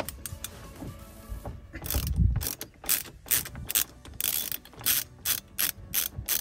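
Ratchet wrench clicking in a run of quick strokes, about three a second, as the steering wheel's retaining bolt is worked loose.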